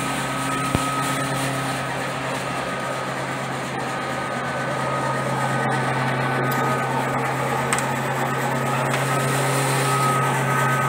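Electric noodle-making machine running steadily, its motor driving the dough rollers with an even hum and a thin high whine. A single sharp click about a second in.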